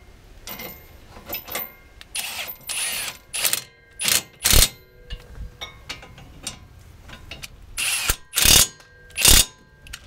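Milwaukee cordless impact wrench hammering in several short bursts, driving the 17 mm caliper bracket bolts tight.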